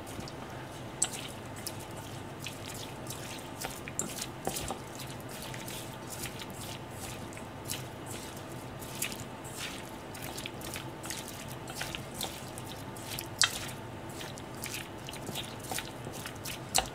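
Chopsticks stirring sliced lotus root through a wet egg-and-flour batter in a stainless steel bowl: a stream of irregular wet squelches and light clicks of the chopsticks against the bowl, over a steady low hum.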